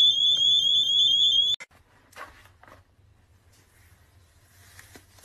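Retail anti-theft display alarm sounding a loud, shrill, rapidly warbling tone, set off by lifting a display phone from its security stand. It cuts off abruptly about a second and a half in, leaving only faint rustling.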